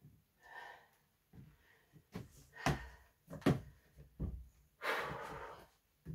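A few sharp knocks and taps of hands on a Speed Stacks table and timer mat as a sport stacker gets set for a 3-3-3 stack, with breaths in between, the longest a breath out lasting nearly a second near the end.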